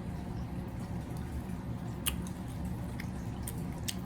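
Eating seafood close to the microphone: soft wet chewing and squishing, with a sharp click or crack about two seconds in and another near the end, over a steady low background hum.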